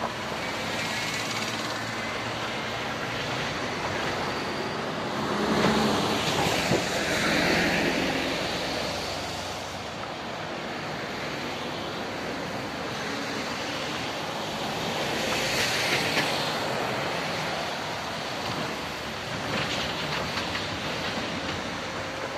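Cars and a truck driving one after another over a railway level crossing. Tyre and engine noise swells and fades as each vehicle passes, loudest about six and sixteen seconds in, with short knocks as wheels cross the rails.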